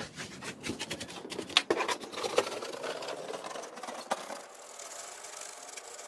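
A paintbrush scrubbing dust off a plastic floor-fan grille: quick, scratchy bristle strokes with small clicks against the plastic ribs, which turn softer and quieter about four seconds in.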